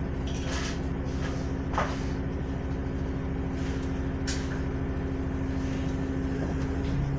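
City bus engine idling, heard from inside the passenger cabin as a steady, even hum, with a few short clicks and knocks over it.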